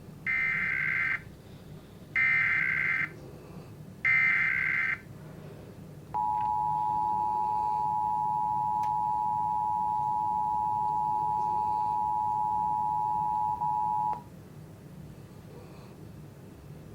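Emergency Alert System alert starting on a TV: three one-second bursts of screechy digital data tones (the header), then the steady two-tone attention signal held for about eight seconds before it cuts off.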